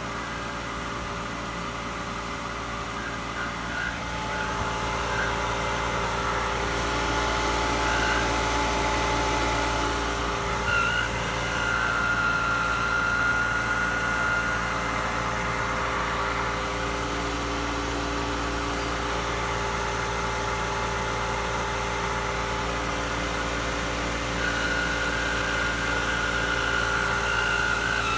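Jandy pool pump running with a steady mechanical hum and grinding noise. A thin high whine comes in briefly about halfway through and again near the end.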